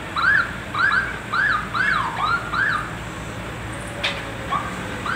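Electronic warning siren sounding a run of short rising-and-falling chirps, about two a second, then pausing and starting again near the end. A single sharp click comes about four seconds in.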